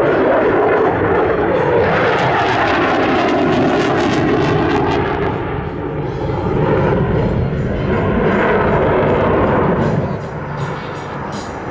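Dassault Rafale fighter flying a display pass, its twin Snecma M88 jet engines giving loud, steady jet noise that eases off slightly near the end.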